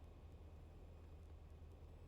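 Near silence: only a faint, steady low hum of a light aircraft's engine and cockpit as heard through the headset intercom recording.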